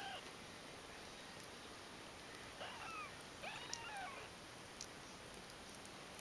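Ten-day-old kittens mewing: a short cry at the very start, then two mews about two and a half and three and a half seconds in, each rising and then falling in pitch.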